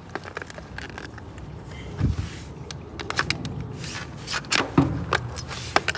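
A stuck plastic cover being prised off a photoelectric beam unit: a run of sharp clicks, cracks and scrapes as it works loose, with a couple of dull knocks about two and five seconds in.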